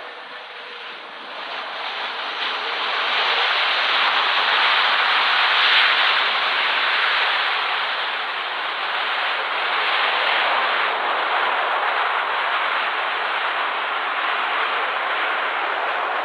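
Jet engine noise of an Emirates Airbus A380 coming in to land: a loud rushing noise that swells over the first few seconds, then holds steady.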